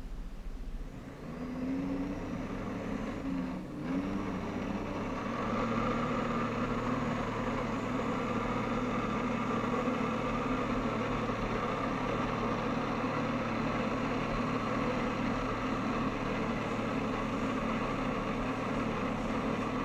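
Personal watercraft engine and jet pump powering a Flyboard through its hose. It revs up over the first few seconds, dips briefly, then holds a steady high drone while the rider is lifted on the water jets.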